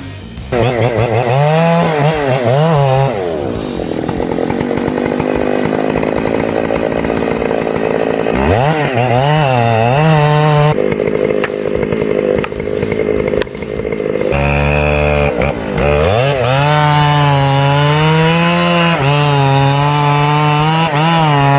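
Chainsaw running at high revs and cutting, its engine note rising and falling with the load, dropping off briefly a few times before revving back up.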